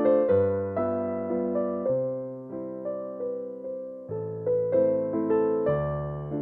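Background music: a gentle piano melody over slow bass notes.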